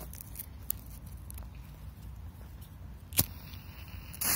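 A lighter clicks once about three seconds in, and near the end the fuse of a Blitz firecracker catches and starts hissing loudly.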